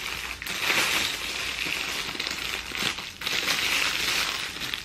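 Clear plastic packaging bag crinkling and rustling steadily as it is handled, with two brief pauses.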